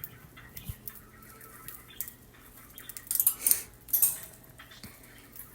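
Budgies moving about their cage: scattered light clicks and taps, with a short scratchy call about three seconds in.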